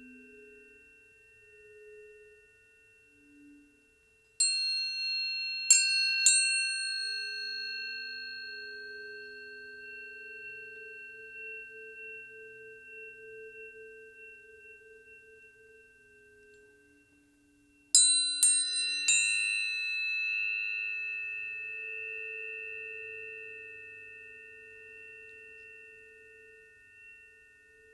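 Tuning forks struck in two sets of three, about four seconds in and again about eighteen seconds in. Each strike is a sharp click followed by several high pure tones ringing together and slowly fading. A faint low hum sounds underneath throughout.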